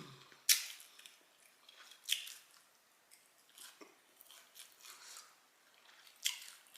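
Chewing a hot-sauced fried chicken wing close to the microphone. A few sharp bites stand out about half a second in, around two seconds in, and loudest near the end, with softer chewing between.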